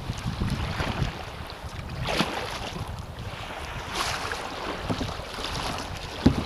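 Kayak paddle strokes splashing in choppy water about every two seconds, with water lapping at the hull and wind buffeting the action camera's microphone. A sharp knock just before the end.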